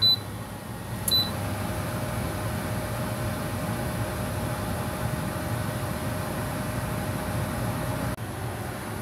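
Power AirFryer XL beeping twice on its control panel, then its fan running with a steady hum as it starts a 350°F, 10-minute cooking cycle.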